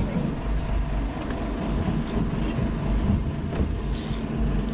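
Sport-fishing boat's engine running steadily under way, with water rushing past the hull, and a couple of sharp clicks.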